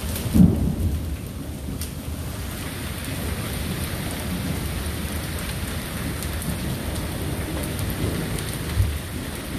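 Steady rain falling, with low rolling thunder from a thunderstorm. There is a short loud low thump about half a second in and a smaller one near the end.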